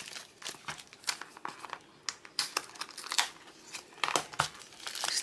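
Small clear plastic bags crinkling as they are handled and opened, with irregular sharp crackles.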